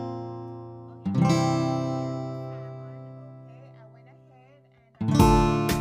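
Background music: strummed chords that ring out and fade away, with a new run of strummed chords near the end.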